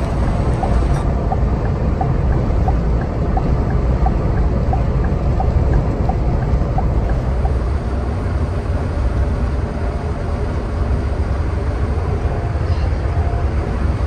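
Scania K410IB coach running at speed: the steady drone of its engine blends with tyre and road noise, heard from inside the passenger cabin. A light, regular ticking, about one and a half a second, runs through the first half.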